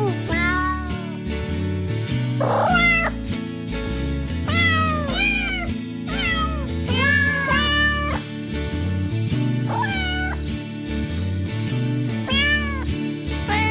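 Cats meowing again and again, many short rising-and-falling meows, over background music with a steady beat.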